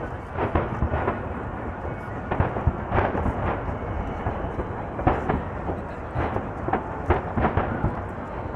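Aerial fireworks shells bursting in quick, irregular succession, the booms overlapping into a continuous rumble.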